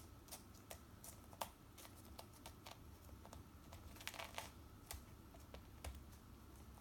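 Faint, irregular light ticks and rustles of a very young kitten playing with packing twine, with a quicker cluster of ticks about four seconds in.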